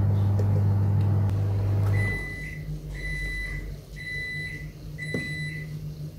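A low electric hum runs and stops about two seconds in. Then a household appliance's electronic beeper sounds four long beeps, about one a second.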